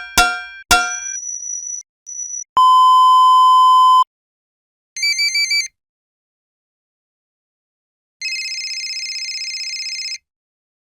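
Electronic sound effects separated by dead silence. First come two sharp clanging strikes that ring briefly, then a steady beep about one and a half seconds long. Next is a short warbling bleep, and near the end a buzzing electronic tone lasting about two seconds.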